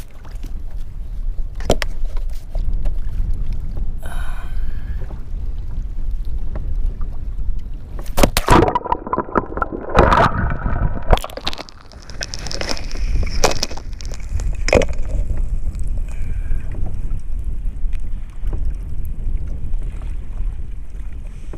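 Water sloshing and splashing at the side of a kayak as a barracuda is handled, with a louder spell of splashing about eight to eleven seconds in. Scattered knocks and a steady low rumble of wind on the camera microphone run underneath.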